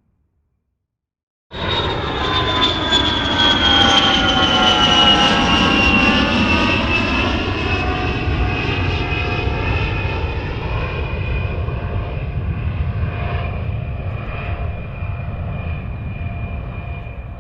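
Fixed-wing aircraft engine sound effect. It starts suddenly after a second and a half of silence: a loud rumble with a high whine that slowly falls in pitch, then gradually fades.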